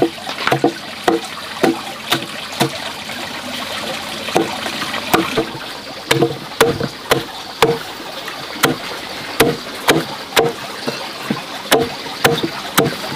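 Irregular light clinks and knocks of utensils against ceramic bowls, about two a second, some strikes with a short ring.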